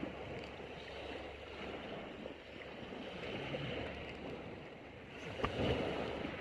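Sea waves washing onto a beach, a steady rush with one wave surging louder near the end.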